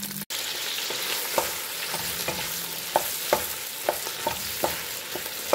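Onion wedges sizzling in hot oil in a stainless steel pot while a wooden spoon stirs them, knocking against the pot about eight times.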